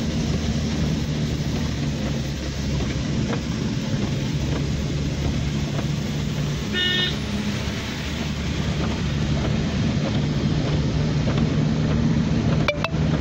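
Steady engine and tyre noise of a car driving on a wet road, heard from inside the cabin. A vehicle horn sounds briefly about seven seconds in, and there is a sharp click near the end.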